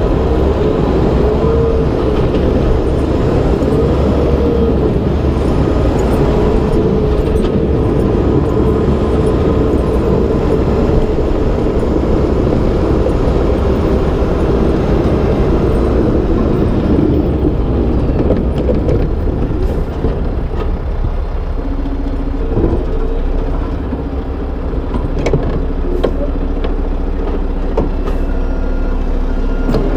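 Mack Granite diesel plow truck driving under load while its wing plow pushes snow off the road edge: a steady engine and road drone, its whine shifting to a lower, steadier hum about two-thirds of the way through.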